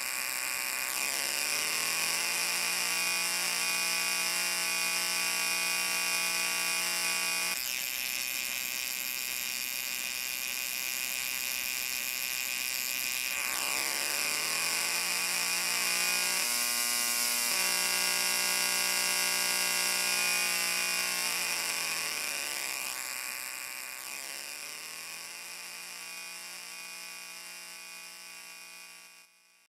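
A steady buzzing drone with many overtones and some hiss. Its pitch sweeps and shifts several times, and it fades out and stops just before the end.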